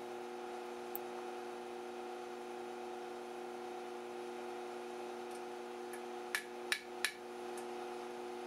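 Three light knocks of the iron drive hook and tongs on the steel anvil in quick succession, about six seconds in, with a faint tick a second in. A steady hum runs underneath.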